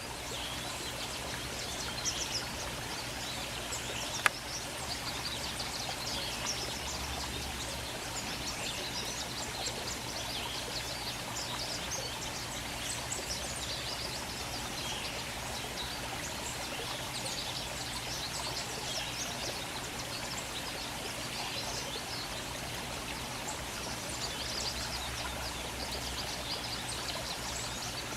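Small songbirds chirping and twittering in many short, high calls over a steady rushing background, with one sharp click about four seconds in.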